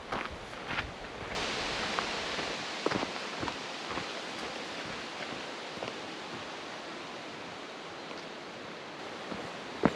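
A steady rushing hiss comes in suddenly about a second in and holds, with a few footsteps on the trail heard over it.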